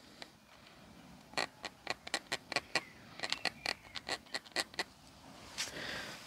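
Small irregular clicks and taps as a bolt is turned in gloved fingers against the nozzle of a thread-lock tube while the threads are coated, about three or four a second, followed near the end by a short rustle of handling.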